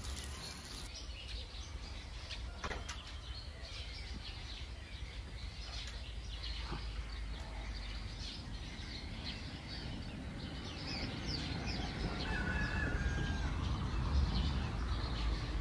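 Birds chirping and calling: many short high chirps, growing busier in the second half, with a brief steady whistled note near the end, over a low steady rumble.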